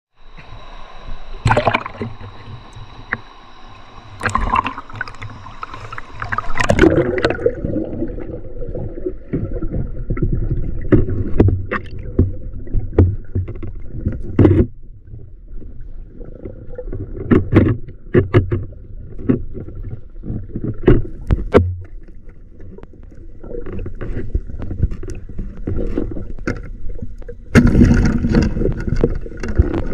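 River water splashing and sloshing, with irregular knocks and thuds throughout and a louder spell of splashing near the end.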